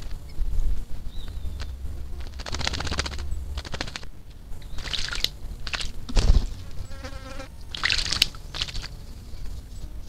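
Casaca-de-couro (Caatinga cacholote) bathing in a shallow water basin, splashing and fluttering its wings in several short bursts, with a brief rapid rattle a little after the middle.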